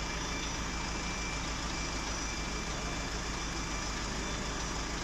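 An engine idling with a steady, unchanging drone.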